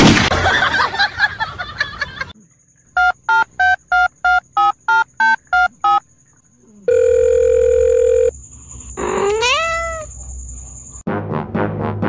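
Edited-in electronic sound effects. A noisy burst is followed by about ten short beeps, roughly three a second. Then comes a held tone, then a pitch that swoops up and falls back, and music starts near the end.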